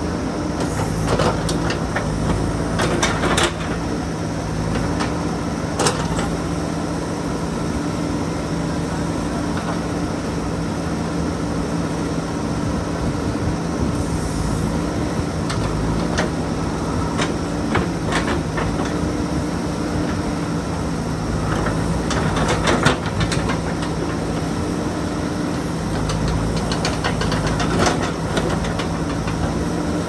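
JCB backhoe loader's diesel engine running steadily while the backhoe works. Scattered sharp knocks come from the bucket working among the rocks.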